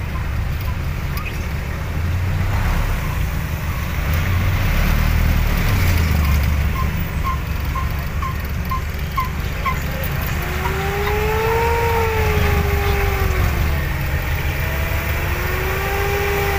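Ride noise of a moving road vehicle with its window open: a steady low engine and road rumble with wind. Midway comes a quick run of about eight short high chirps, and about ten seconds in a pitched tone slowly rises and falls for several seconds.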